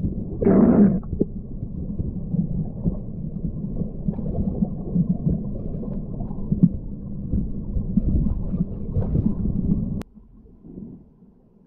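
Muffled underwater sound of a flowing river, a steady low rumble and gurgle heard through an underwater camera. A brief louder rush comes about half a second in, and the sound drops abruptly to much quieter about ten seconds in.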